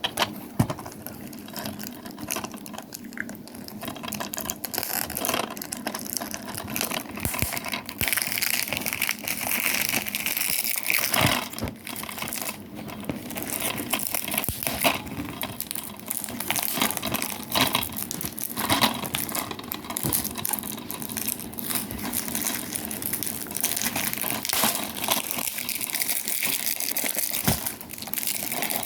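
Plastic shrink wrap being torn and crumpled off a DVD case, a continuous crinkling crackle with many small clicks and snaps.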